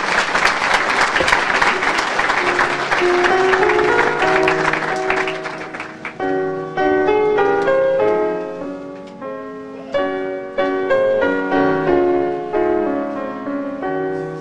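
Audience applauding, dying away about six seconds in, while instrumental music with a clear melody of struck notes begins underneath and then carries on alone.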